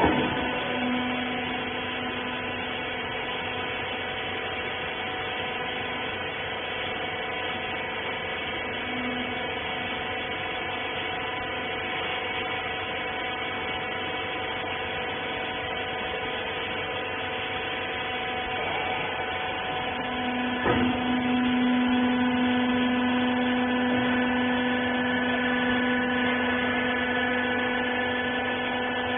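Rag compression baler's electric motor and hydraulic pump running with a steady hum. About twenty seconds in there is a click, and the hum gets louder.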